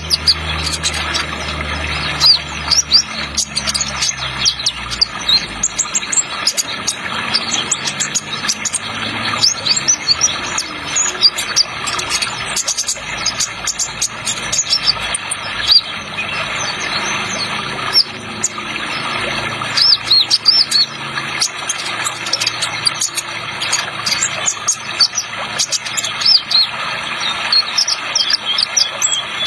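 Kolibri ninja (sunbird) singing quick, high chirps and trills in the 'trotol' style over a steady sound of running water. A low hum fades out over the first few seconds.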